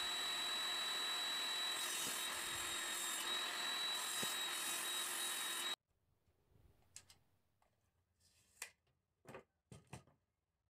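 Table saw running with its blade spinning free, a steady whine that cuts off suddenly about six seconds in. Then a few faint clicks and taps as a tape measure is laid along a board.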